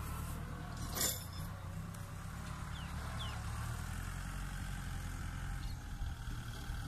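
Farm tractor's diesel engine running steadily in the distance as it pulls a harrow across a field, with a brief sharp knock about a second in.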